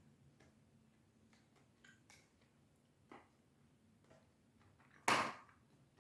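A person quietly chewing a mouthful of protein bar, with faint scattered mouth clicks, and one short, much louder noise about five seconds in that fades within about half a second.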